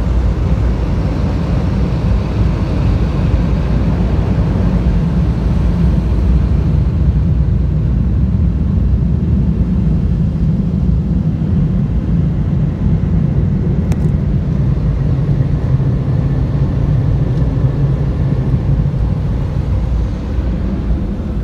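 Car wash air dryer blowers blasting air over the car, heard from inside the cabin as a loud, steady rush of air with a deep rumble that eases slightly near the end.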